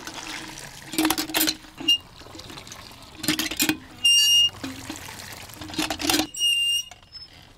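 Cast-iron hand pump being worked: water gushes from the spout in surges about every two and a half seconds, and between the surges the pump handle gives short, high squeaks.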